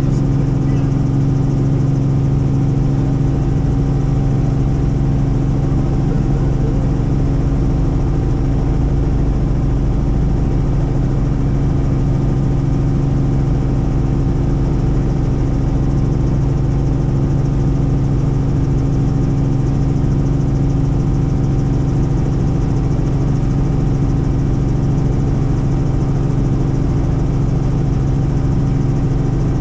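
Helicopter in flight, heard from on board: a loud, steady drone of engine and rotors with several held tones over a low rumble, unchanging in pitch and level.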